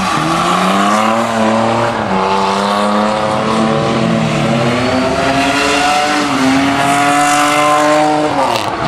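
BMW E30 doing donuts: the engine is held at high revs with the rear tyres spinning and screeching. The revs waver and climb a little, then drop sharply and pick straight back up near the end.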